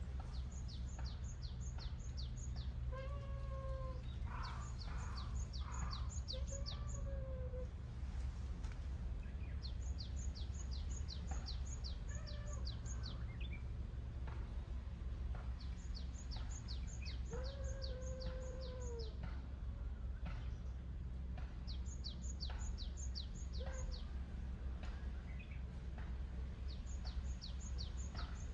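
A bird sings about six short phrases of rapid, high, falling notes, one every few seconds, while a cat gives about four soft meows in between. A steady low rumble runs underneath.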